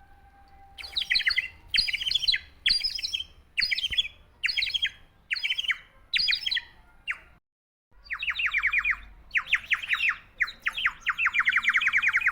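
Water-filled clay bird whistle being blown: a bubbling, warbling trill in short puffs about once a second, then, after a brief break, a longer run of fast, continuous warbling.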